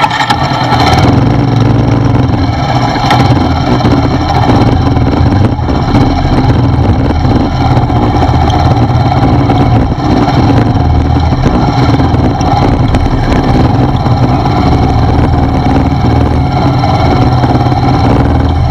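Motorcycle engine running steadily as the bike rides through shallow, muddy floodwater, with water splashing around the front wheel, heard close up from a camera mounted on the bike.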